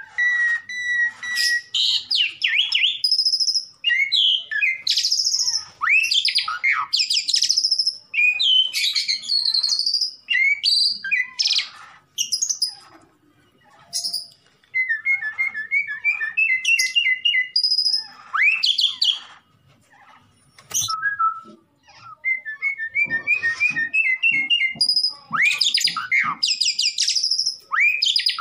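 Pied starling (jalak suren) singing a loud, varied song of whistles and chattering notes, with quick runs of rising notes and a few short pauses.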